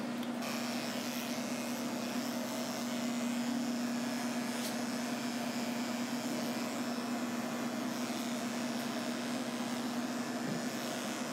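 Corded electric grooming clippers running with a steady hum as they shave a schnauzer puppy's matted coat.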